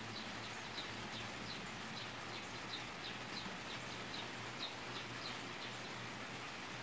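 Steady hiss of a rain shower falling on the garden, with a small bird repeating a short, falling chirp about three times a second.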